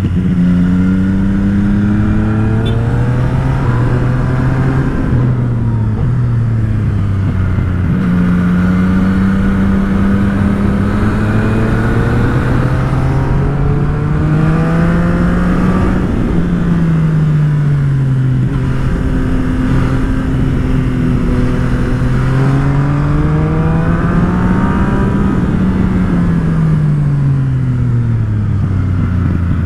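Yamaha MT-09 SP's three-cylinder engine through an aftermarket Akrapovič exhaust, heard from the saddle while riding a twisty road. Its pitch rises several times under acceleration and falls off as the throttle closes for the bends, over steady wind noise.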